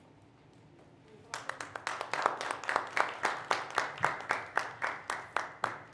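Small audience applauding, starting about a second in, with the claps settling into an even beat of about four a second before stopping abruptly just before the end.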